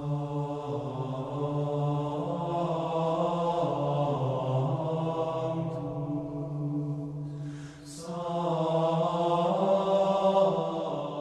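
Sacred chant sung by low male voices in long, slowly moving held notes, with a short break about eight seconds in before the chant resumes.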